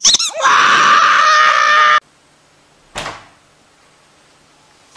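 A dog's plush squeaky toy letting out a long, loud squeak with a few quick chirps at the start. The squeak holds a steady pitch for about two seconds, then cuts off abruptly. About a second later comes a single dull knock.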